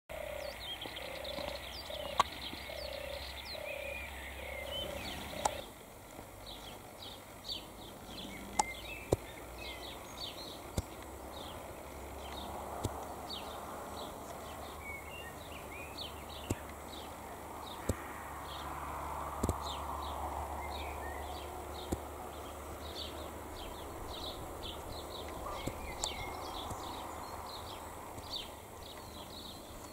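Outdoor birdsong ambience: a run of low hooting bird notes for the first five seconds or so, then many short high chirps scattered throughout. There are a few sharp clicks and a low rumble underneath.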